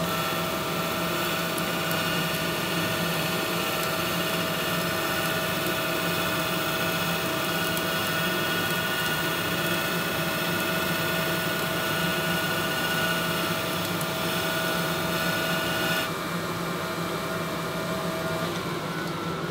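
Crankshaft grinding machine running with its grinding wheel spinning: a steady machine whine of several tones over a hiss, while the wheel is dressed with a diamond on the tailstock fed by hand. Most of the tones cut off about three seconds before the end, and one lingers a little longer.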